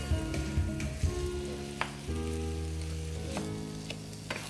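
Raw ground beef sizzling in a hot frying pan as it is stirred with a wooden spatula, with a few light knocks of the spatula against the pan.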